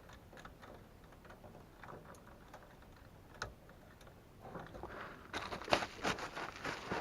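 Light, irregular clicking and rattling of hands handling wires and terminals at a furnace control board. It becomes busier and louder about four and a half seconds in.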